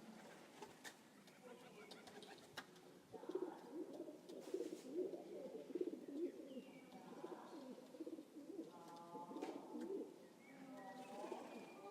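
A pigeon cooing: a long run of low, rolling, wavering coos, with a few faint higher bird chirps.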